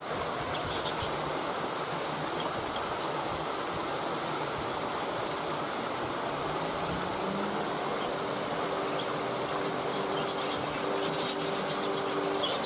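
Waterfall rushing steadily. Soft, sustained music notes come in about seven seconds in.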